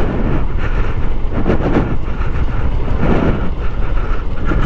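Honda CG 160 Start's single-cylinder four-stroke engine running as the motorcycle rides along a street, with steady wind rumble on the microphone.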